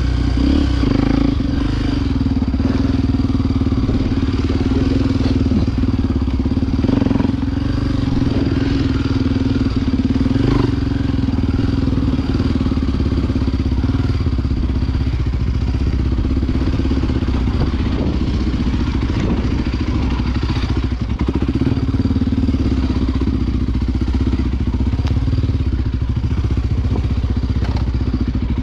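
Honda XR Tornado 293 single-cylinder four-stroke enduro motorcycle running at a fairly steady throttle on a dirt trail, with scattered knocks and clatter, most of them in the first ten seconds or so.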